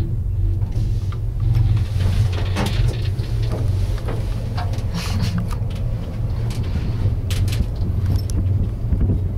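Steady low rumble inside an enclosed aerial gondola cabin riding its cable, with scattered light clicks and rattles from the cabin.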